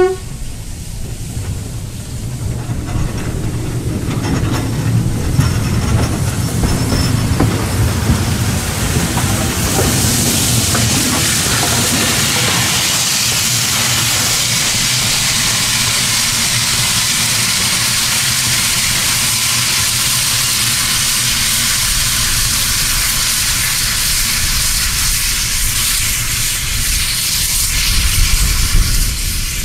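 SY-class steam locomotive and coal train passing close: a brief whistle blast at the very start, then the rumble and clatter of wheels on the rails, giving way about ten seconds in to a loud, steady hiss of escaping steam. Near the end the rumble swells again as the second locomotive of the push-pull train draws near.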